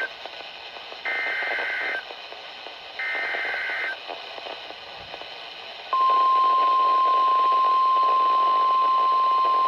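Emergency Alert System SAME header on NOAA Weather Radio: the tail of one data burst, then two more one-second bursts of warbling digital tones a second apart, announcing a new warning. About six seconds in, the steady 1050 Hz weather radio warning alarm tone starts and holds, loud and unbroken.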